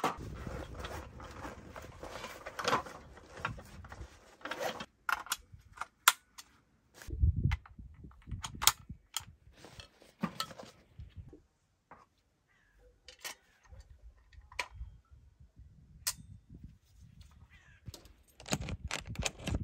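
Rustling and handling noises of camping gear being packed away, then a string of separate sharp clicks and knocks with a dull thump about seven seconds in, and more rustling near the end.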